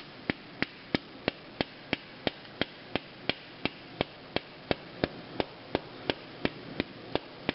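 Steady, evenly spaced hammer blows, about three a second, on a part of an engine being taken apart.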